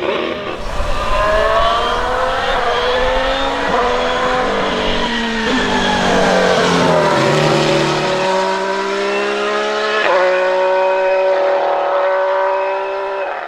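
Ferrari SF71H Formula 1 car's 1.6-litre turbocharged V6 running at high revs, its pitch rising and falling, dipping about halfway through, then holding steadier.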